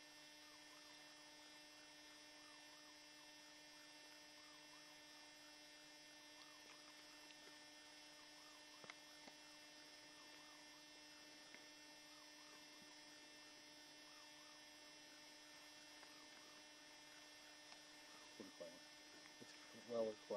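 Near silence: a faint steady electrical hum, with a couple of faint clicks.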